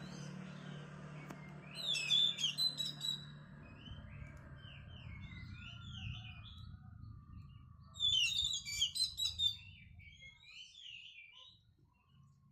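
Oriental magpie-robin (kacer) singing: two loud bursts of rapid, high, chattering notes about two seconds and eight seconds in, with softer repeated phrases between them. A low steady hum sits underneath and fades out near the end.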